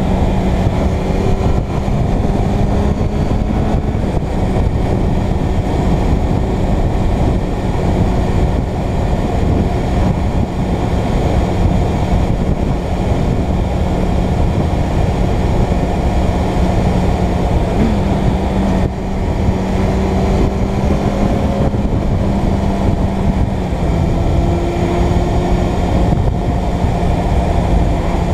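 A Suzuki Bandit 600's air/oil-cooled inline-four running at a steady cruise, its note shifting only slightly a few times. Wind rushes over the microphone throughout.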